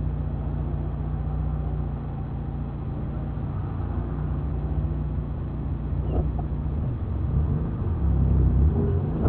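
A car's engine and road noise as a steady low drone while driving, with a brief dip in the engine tone about seven seconds in.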